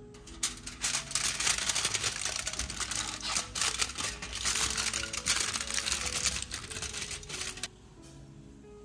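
Aluminium foil crinkling as hands fold and press it around a ceramic ramekin: a dense run of crisp crackles that stops abruptly about a second before the end, over soft background music.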